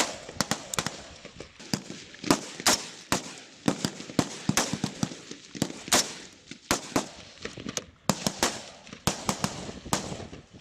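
Rifle fire from several shooters on a firing line: sharp single shots at uneven intervals, several a second and often overlapping, each with a short echo.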